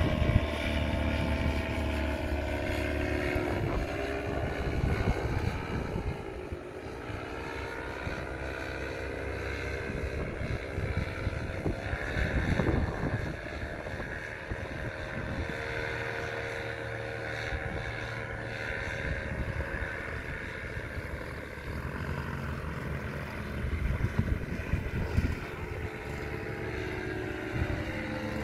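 Paramotor engine and propeller droning overhead, its pitch sliding down and up several times as the throttle changes and the machine passes by. The engine note drops near the end as the paramotor comes in to land. Wind buffets the microphone throughout.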